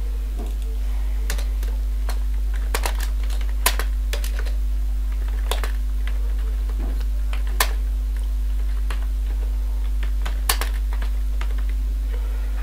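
Computer keyboard typing: irregular keystroke clicks, a few louder than the rest, over a steady low electrical hum.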